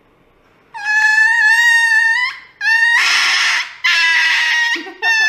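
Small dog screaming during an injection: four long, high-pitched cries starting about a second in, the first two clear and wailing, the later ones harsher and rasping.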